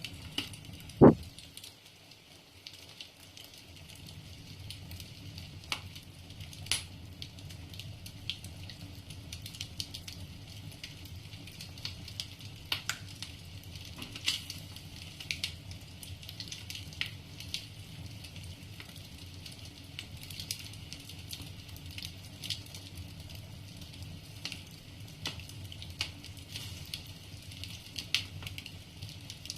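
Wood fire burning in a fireplace: logs crackling, with sharp pops scattered throughout over a steady low rumble. One much louder knock about a second in.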